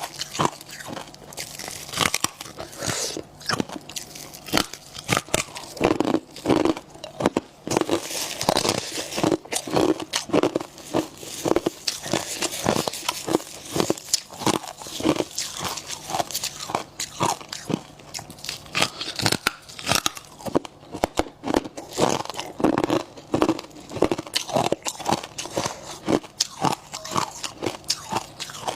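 Close-up crunching of freezer frost and ice being bitten and chewed: rapid, irregular crunches and crackles, several a second, with the soft squeak of packed powdery frost.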